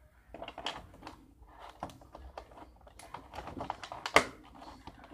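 A pen scribbling on paper as a drawing is coloured in: quick, irregular scratchy strokes and taps, with one sharper knock about four seconds in.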